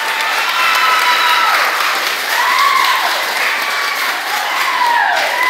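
A crowd of school students clapping and cheering, with high-pitched shouts rising and falling over the applause.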